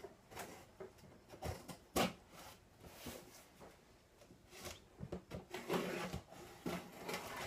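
Packing tape on a cardboard box being cut open by hand: scattered scrapes, taps and rustles of the tool and cardboard, getting busier near the end.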